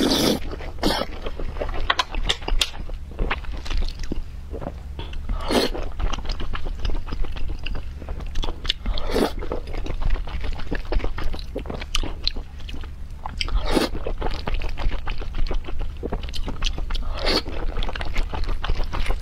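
Close-miked chewing and biting of wontons in chili oil: wet mouth sounds with many small clicks and a louder bite every few seconds.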